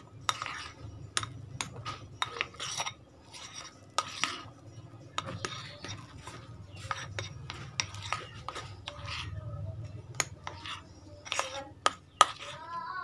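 A spoon stirring thick cake batter in a bowl, blending in green pandan paste: irregular scraping strokes with sharp clicks of the spoon against the bowl's side.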